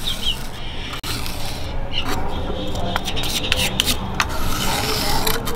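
Flat spreader scraping and rubbing white heat-sink paste across the aluminium back plate of an LED street-light PCB, in irregular rough strokes with a few small clicks.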